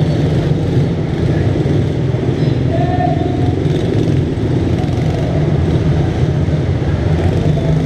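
Small minibike engines running as the onboard rider moves among other minibikes, with steady low-pitched noise on the bike-mounted camera's microphone.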